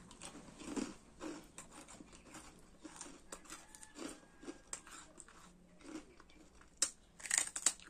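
Crisp puffed rice cracker being bitten and chewed, with short faint crunches throughout. A few louder crackles come near the end.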